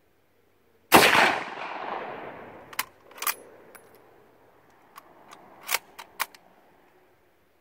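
A single shot from a 1927 Mosin-Nagant M91/30 bolt-action rifle firing 7.62×54R, about a second in, its report rolling away over two or three seconds. Then a run of sharp metallic clicks and clacks as the bolt is worked to eject the spent case and chamber the next round.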